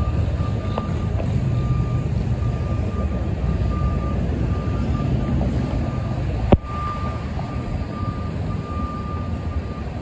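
Refrigerated box truck's engine running with its reversing alarm beeping in a steady repeating pattern; one sharp knock about six and a half seconds in.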